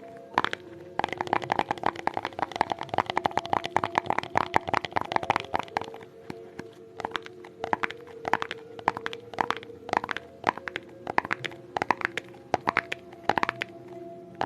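ASMR tapping: a rapid flurry of crisp taps for several seconds, then slower, spaced single taps, over faint steady background tones.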